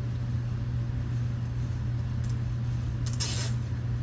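Nylon zip tie pulled partway through its locking head: a brief rasp about three seconds in, with a faint short flick a little before it, over a steady low hum.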